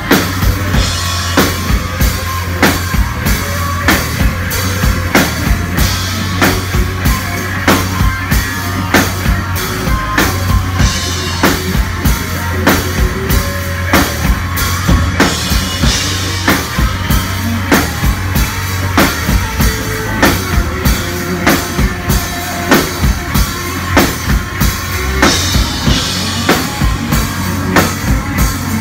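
Live rock band playing loud: a drum kit keeping a steady beat with kick and snare under electric guitars and bass.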